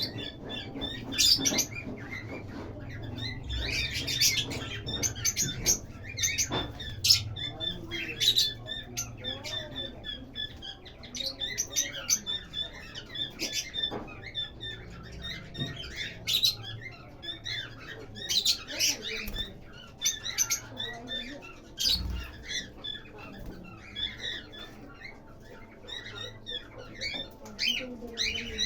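Lovebirds chirping and chattering in short, irregular high-pitched calls, with occasional louder sharp chirps.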